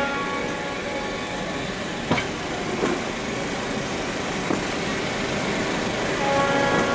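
Passenger railcars rolling slowly past at close range: steady wheel-on-rail rumble with sharp clicks about two, three and four and a half seconds in. Near the end a steady diesel engine hum comes in as the locomotive draws close.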